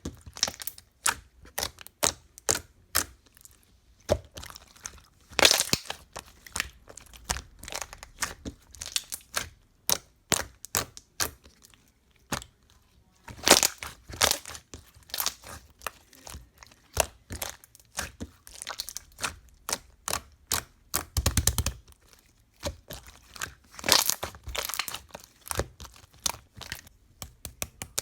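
Slime being squeezed and pressed by hand, giving a run of sharp clicking pops with three longer crackling squishes, about five seconds in, in the middle, and near the end.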